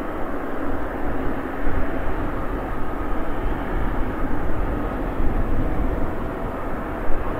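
Boeing 777 jet engines running at low thrust as the airliner taxis, a steady jet noise with a low rumble.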